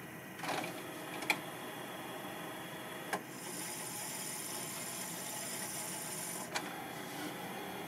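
Grundig 2x4 Super Video 2000 video recorder's tape mechanism worked from its front-panel buttons. A few sharp clicks come first, then about three seconds of motor whirring with a high whine that stops with a click, followed by one more click.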